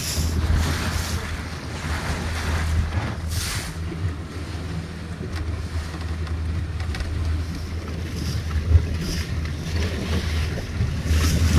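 A boat's motor running at a steady low hum while under way, with water wash and wind noise on the microphone rising and falling in short swells.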